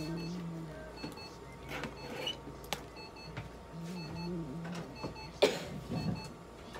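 A veterinary treatment unit runs with a low hum that comes and goes. It gives short, high electronic double beeps every second or two. A few sharp clicks sound, the loudest about halfway through.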